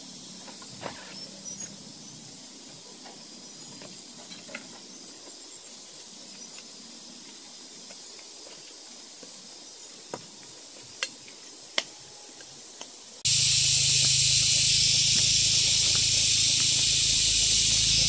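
Faint steady hiss with a few light clicks, then about thirteen seconds in a much louder steady hiss with a low hum underneath cuts in suddenly.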